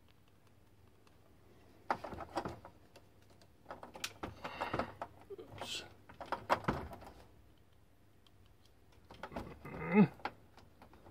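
Handling noise at a 12-volt socket: plastic clicks, knocks and cable rustling from hands working a USB car charger and its cable, in four short clusters with pauses between.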